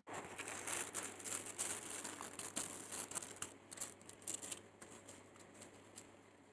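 Two-ply paper napkin being peeled apart into its layers, the thin tissue rustling and crinkling in a run of small crackles that thin out toward the end.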